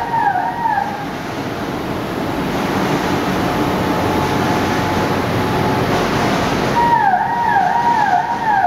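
Steady running noise of a Mitsubishi Diamond 3000 six-colour sheetfed offset printing press on the pressroom floor. A repeating falling electronic warning tone, about three chirps a second, sounds over it in the first second and starts again about seven seconds in.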